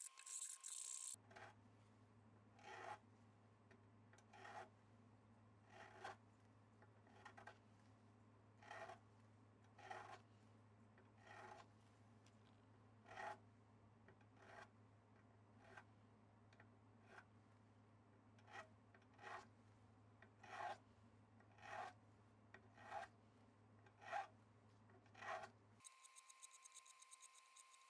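Fret ends of a Greco SA-64-60 semi-acoustic being dressed with a small hand file: a run of faint, short rasping strokes, about one every second and a half, over a steady low hum.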